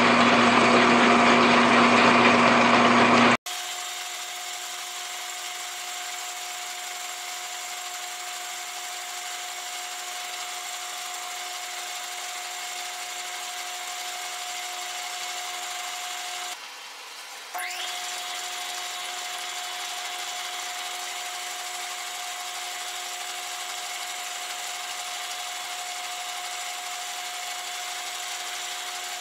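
Metal lathe running a facing cut across a brass gear blank: a steady machine hum and whine of the motor and gearing. It is loud at first, then drops abruptly to a quieter, even run about three seconds in, with a brief dip about two-thirds of the way through.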